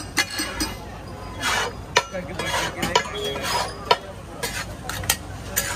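Metal spatulas clinking and scraping against a large flat tawa griddle as a heap of pulao rice is turned and mixed: irregular sharp clinks, about two a second, with a few longer scrapes.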